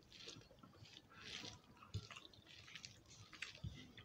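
Faint eating sounds: fingers squeezing and mixing soft khichuri on plates, and chewing, with a scatter of small wet clicks.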